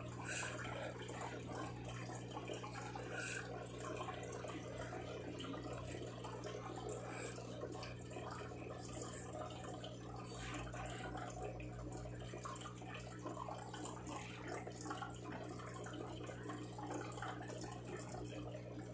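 Steady trickle of running water with a constant low hum underneath.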